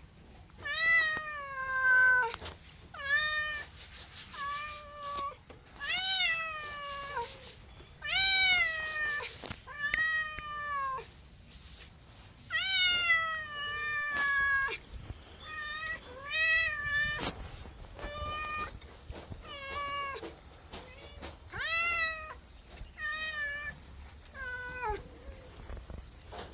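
A cat meowing over and over, one call every second or two. Each meow lasts about a second and falls in pitch after a brief rise.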